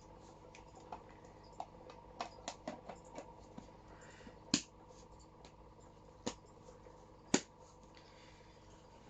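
Plastic containers being handled: a scatter of small clicks and taps, then three sharper clicks a second or two apart.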